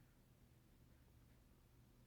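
Near silence: a faint, steady low hum from a Casablanca ceiling fan's Emerson K55 motor running on its lowest speed.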